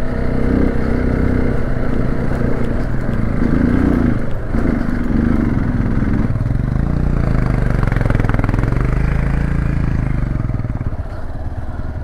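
Hero XPulse 200 single-cylinder motorcycle engine running under way, its revs rising and falling with a brief drop about four seconds in, over wind and road noise.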